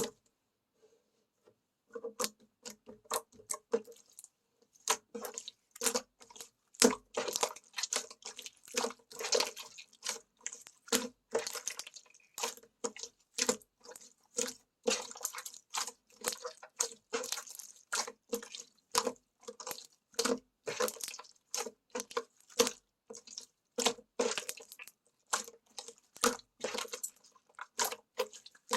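Slime being squeezed and pressed by hand, making dense, irregular wet clicks and pops; it starts about two seconds in after a brief silence.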